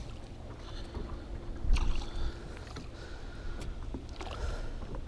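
Wind rumbling on the microphone over water lapping and swirling as a casting rod's tip is swept through the water beside a fishing boat, with a sharp knock about a second and a half in.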